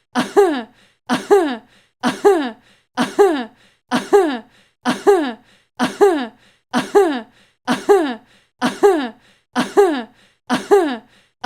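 A stock sound effect: a short, voice-like cry that falls in pitch, looped and repeating evenly about once a second.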